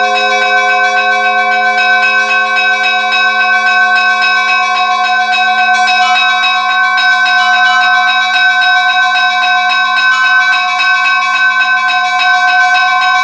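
Church bells ringing continuously, several bells sounding together, their overlapping tones held under rapid, even strikes of several a second.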